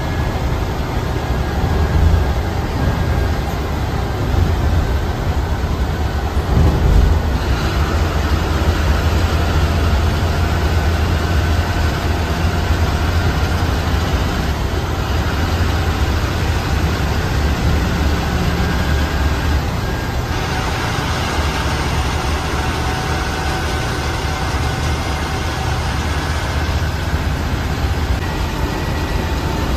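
Diesel engine and road noise of an air-conditioned sleeper coach cruising on a highway, heard from inside the cab: a steady, heavy low rumble under a hiss of tyres and wind. The hiss grows a little louder about two-thirds of the way through.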